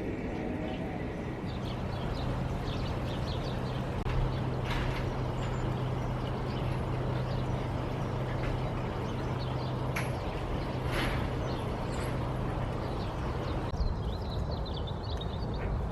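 A steady low motor or engine hum over outdoor background noise, stopping near the end, with faint bird chirps now and then.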